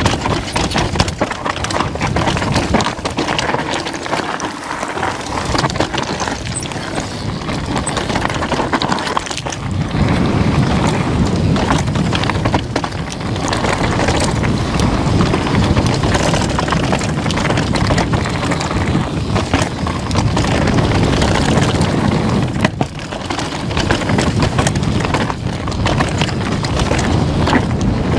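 Downhill mountain bike ridden over rough trail: tyres crunching over the ground, with constant knocks and rattles from the bike over the bumps, and wind rushing over the camera microphone.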